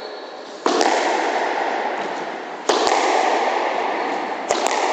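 Squash rally: the ball cracking off rackets and walls about every two seconds, each crack ringing out in the court's long echo. Near the end two cracks come in quick succession.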